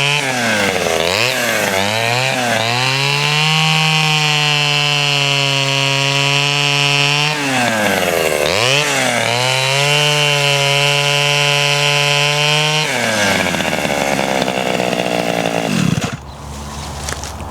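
Pioneer P20 51cc two-stroke chainsaw with a 1/4-inch chain cutting hard firewood at full throttle, its engine pitch holding steady under load. Twice the revs dip and climb back. Near the end the throttle is released, it drops to idle, and it gets quieter.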